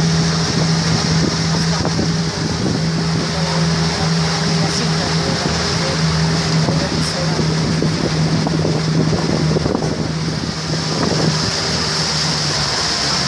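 Small motorboat's engine running at a steady cruise, a constant hum under the rush of wind on the microphone and water along the hull; the engine tone drops away near the end.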